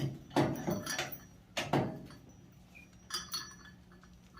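Metal tools and parts clinking and knocking in a handful of short, scattered clanks, the sound of hands working with wrenches and hardware on a go-kart's front suspension.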